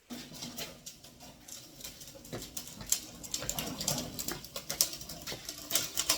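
Irregular clicking and scraping of small metal parts and tools being handled during engine work, a quick string of light knocks and rattles with no steady rhythm.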